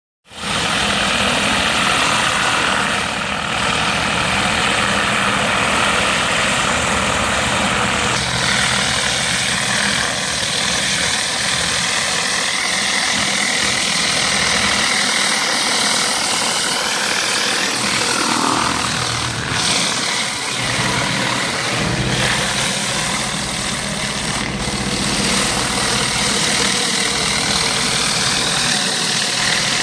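Pressure washer running, its engine-driven pump going steadily under a loud, continuous hiss of the high-pressure water jet.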